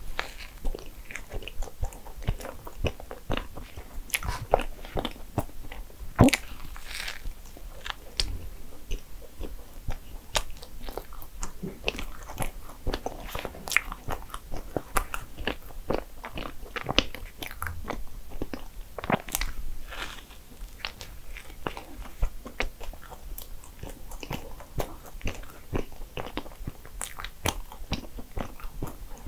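Close-miked eating of desserts: a person biting and chewing, with many crisp crunching and crackling bites.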